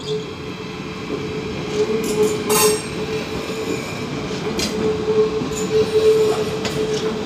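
Electric multiple-unit passenger train passing at close range over a street level crossing: a steady rumble of wheels and running gear under a constant humming tone, with a few sharp clanks as the wheels cross the crossing's rails.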